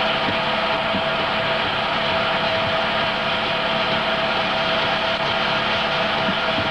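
Home-movie film projector running: a steady mechanical whirr with a constant hum tone.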